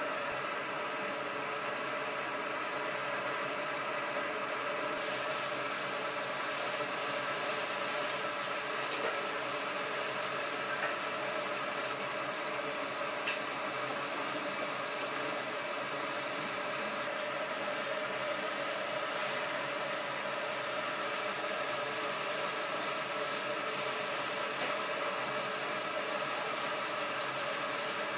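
Pig intestine grilling on a wire mesh over charcoal: a steady sizzling hiss at an even level, with a couple of faint crackles a little past the middle.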